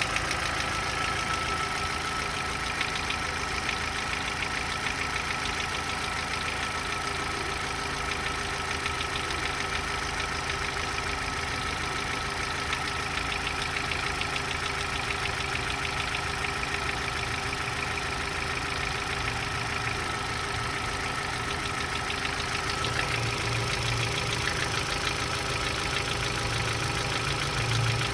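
Opel Z14XEP 1.4-litre four-cylinder petrol engine idling with a fast, even knock running through it, the knock that is the point of the recording; the low rumble grows a little stronger in the last few seconds.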